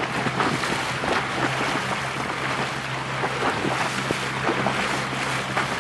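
Wind buffeting the microphone and water splashing on a moving boat, with a steady low hum under it that drops out briefly about three and a half seconds in.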